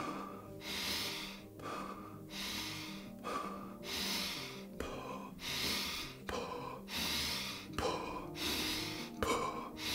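A man breathing fast and deep in a steady rhythm, a strong breath about every second and a half with softer ones between, the exhale let go through an open mouth: a quickened breathwork round, inhaling into belly and chest. Soft background music plays underneath.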